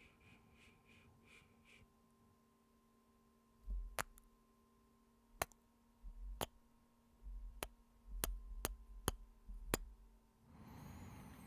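Close-microphone kissing sounds: about eight sharp lip smacks spread over six seconds, with low thuds on the microphone around them, then a breathy exhale near the end.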